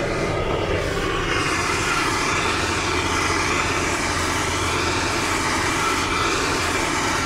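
Gas torch burning steadily with an even rushing hiss, heating the KTM bearing race removal tool so that the crankshaft's main bearing inner race can be pulled off.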